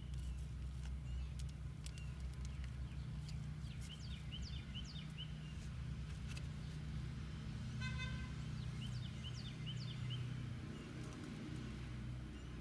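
Outdoor background: a steady low rumble, with small birds chirping in short runs a few times. There is a brief beep about eight seconds in and a few light clicks.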